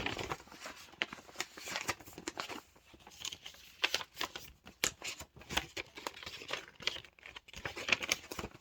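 Paper and card rustling and crinkling as greeting cards and envelopes are handled, with irregular small clicks and rustles throughout.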